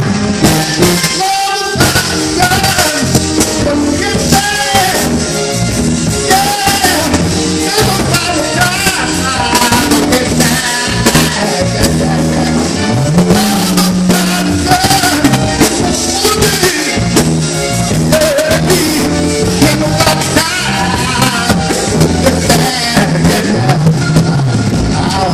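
A man singing a soul ballad into a microphone over music with drums, steady and loud.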